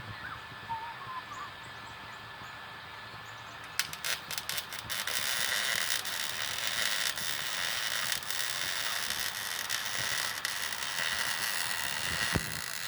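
Welding arc crackling: a few sputters about four seconds in, then a steady, dense crackle.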